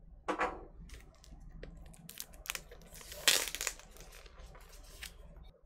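Plastic shrink wrap crinkling and tearing as it is pulled off a vinyl record sleeve, with two louder rips, about a third of a second in and around three seconds in, and scattered crackles between.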